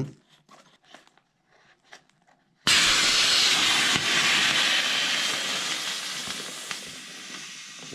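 A few faint clicks as a CO2 cartridge is screwed into an Onyx AM24 inflatable life vest's inflator, then, a little under three seconds in, a sudden loud hiss of CO2 rushing into the bladder that slowly tapers off. The cartridge was screwed in too tight and fired the inflator.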